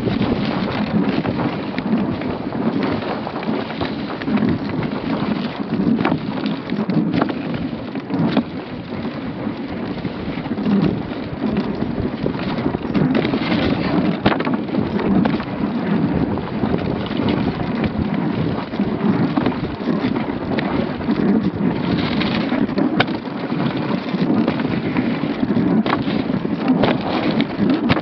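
Dog sled runners scraping and rumbling steadily over snow, with the sled's frame knocking and rattling now and then.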